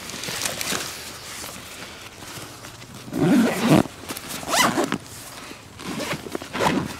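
Zippers on a nylon backpack pulled in several short strokes, the loudest a little past halfway, with the rustle of the pack being handled.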